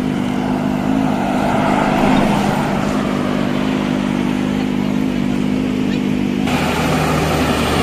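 Highway traffic: vehicle engines running with a steady hum and tyre noise. The sound changes abruptly about six and a half seconds in, becoming duller with a deeper hum.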